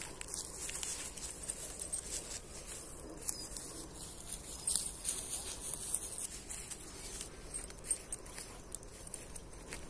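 A metal chain dog leash jingling in irregular clicks, with footsteps and rustling on a dry dirt path.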